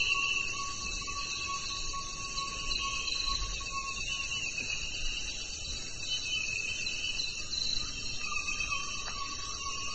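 Forest insect chorus: several insects trilling steadily at different pitches, overlapping, with one lower-pitched trill dropping out for a few seconds midway.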